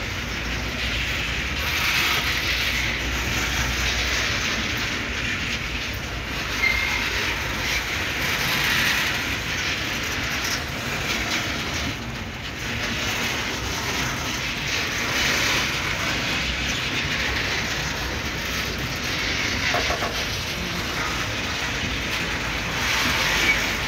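Freight wagons of a bauxite ore train rolling past on broad-gauge track: a steady rumble and clatter of wheels on rail that swells and fades every few seconds as the wagons go by. A brief high squeal comes about seven seconds in.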